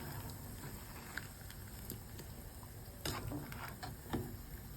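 Faint bubbling of a pot of boiling chicken cooking liquid with capsicum blanching in it, with a few light clicks scattered through.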